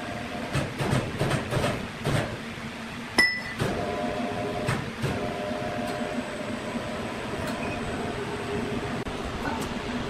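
Sawmill machinery: a run of knocks and clatter, then one sharp metallic clink about three seconds in, followed by a steady machine hum with a held tone.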